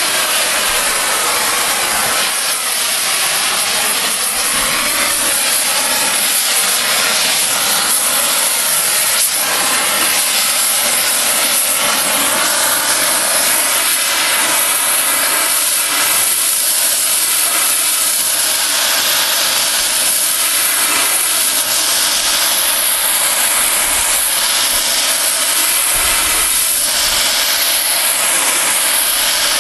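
Oxy-fuel cutting torch hissing steadily as it flame-cuts through thick 141-pound-per-yard steel railroad rail.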